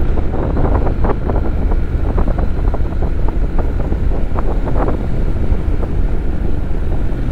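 Wind rushing and buffeting over the microphone of a Honda NC750X motorcycle riding at road speed, with a steady low rumble from the bike underneath.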